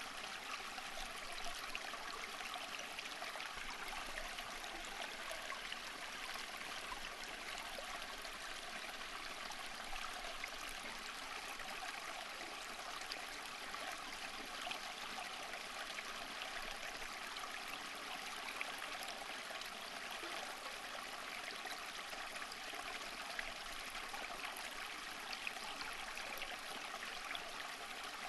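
Flowing water running steadily, a stream with a continuous babbling trickle.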